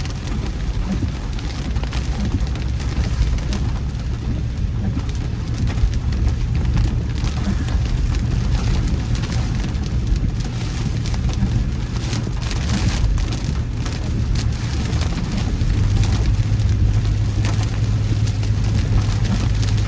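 Heavy rain pelting a moving car, over the steady low rumble of its tyres and engine on the road.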